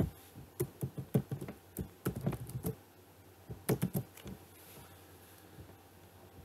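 Computer keyboard keystrokes: a quick run of key clicks over the first three seconds and a few more around four seconds in.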